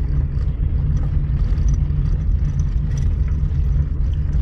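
Steady low rumble of a car driving in low gear on a gravel road, heard from inside the cabin: engine drone mixed with tyre noise.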